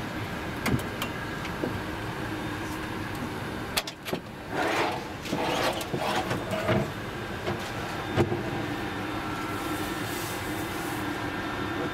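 Steady hum of an Airbus A380 cabin, with a few clicks. A louder, irregular stretch of handling or motor sound comes about halfway through.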